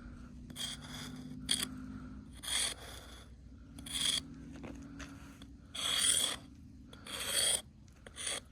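Ice being hit and scraped to open a fishing hole: about seven irregular crunching scrapes, roughly one every second or so.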